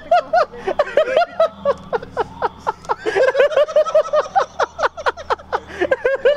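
A man and a woman laughing hard together, a quick, unbroken run of short laughs.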